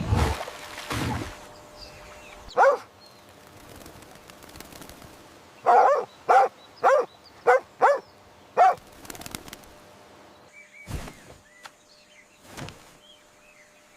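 An animal calling: one short call, then a few seconds later a run of six short calls in quick succession, with a few faint knocks afterwards.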